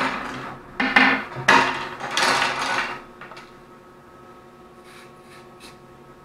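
Aerosol silicone spray hissing in two bursts onto a fishing rod's reel seat: a short one about a second in, then a longer one of about a second and a half. Quiet handling clicks follow.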